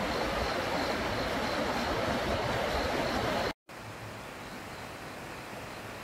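Steady rushing of a mountain stream. It drops out for an instant about three and a half seconds in and comes back quieter.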